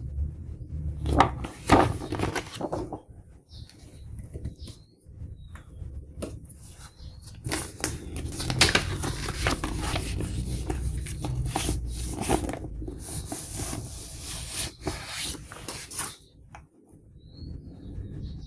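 Paper rustling and rubbing as vinyl LPs are handled and slid out of white paper inner sleeves, in a short spell near the start and a longer one through the middle.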